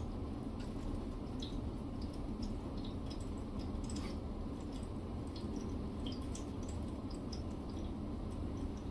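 Birds chirping, short high calls scattered irregularly, over a steady low background hum. It is the female's mating call.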